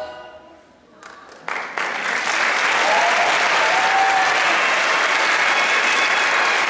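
Dance music fades out, then about a second and a half in an audience breaks into steady applause with some cheering voices.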